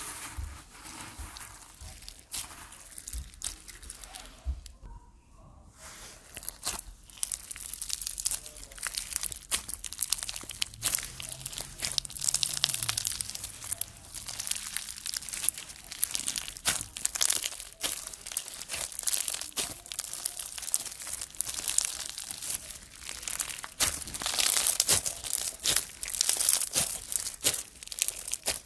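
Floam slime full of small foam beads being squeezed, kneaded and stretched by hand, giving dense crackling and popping. There is a short break about five seconds in, and the crackling grows louder and denser from about seven seconds on.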